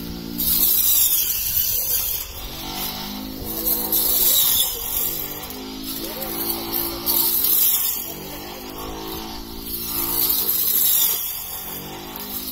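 Battery-powered brush cutter's electric motor whining as its blade cuts standing wheat, the pitch sagging and rising with each sweep through the stalks. Each of about four sweeps brings a surge of swishing, rasping noise as the stalks are cut.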